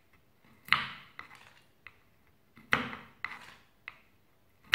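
Kitchen knife chopping nuts on a wooden cutting board: two loud sharp knocks of the blade hitting the board about two seconds apart, with lighter taps between them.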